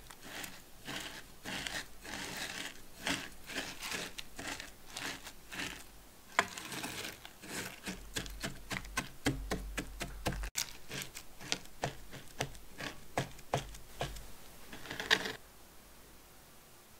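Metal potato masher pressing butter-moistened crushed digestive biscuit crumbs into a square stainless steel mousse ring as a cheesecake base: a quick, uneven run of soft crunching taps with a few sharper knocks. It stops about two seconds before the end.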